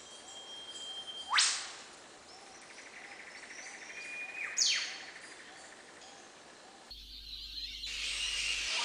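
Eastern whipbird calling twice: each call is a long whistled note that ends in a sharp, fast rising whip-crack, over a faint background chorus. About seven seconds in, the nature recording gives way to a rising hiss.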